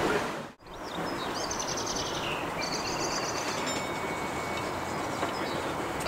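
Steady outdoor background noise, broken by a brief drop-out about half a second in. Over it, a small bird sings two quick high trills about one to four seconds in.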